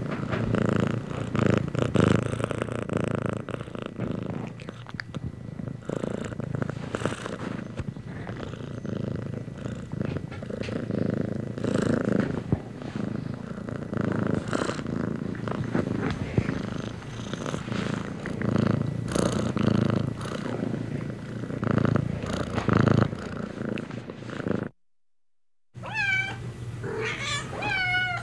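Domestic cat purring, a rough low rumble that swells and fades with each breath. After a brief dropout near the end, the cat gives a few short meows that bend downward in pitch.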